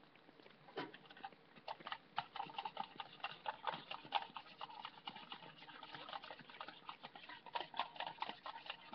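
A fork beating a cracked raw egg in a bowl: quick, uneven clicking of the fork against the bowl, starting about two seconds in.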